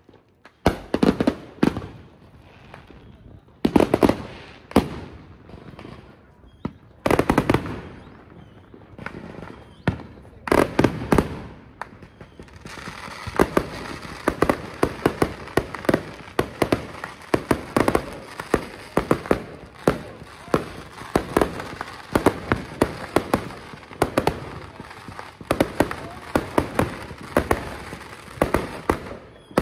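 Consumer fireworks going off. Loud separate bangs come at irregular spacing at first. From about twelve seconds in there is a continuous crackling hiss with rapid bangs several a second.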